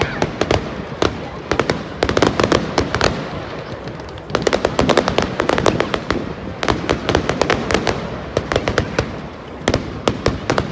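Fireworks crackling overhead: several waves of rapid, sharp crackling pops, each wave lasting a second or two with short lulls between.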